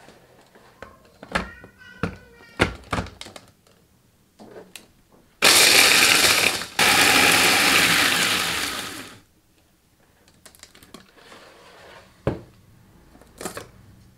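Mitochiba CH-100 electric food chopper with two-tier blades running, crushing Oreo cookies into crumbs: a short pulse, a split-second break, then a longer run that winds down. Clicks and knocks from handling the plastic chopper come before it, and a couple of knocks after.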